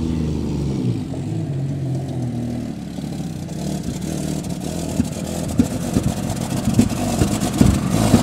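SUV engine running as the vehicle drives over a muddy, rutted grass track and comes closer, growing louder in the second half, with irregular knocks and rattles as it jolts over the ruts.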